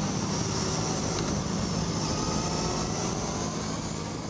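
Motorcycle engine running at road speed with wind rush, heard from a camera mounted on the bike. The engine note holds fairly steady and begins to fade near the end.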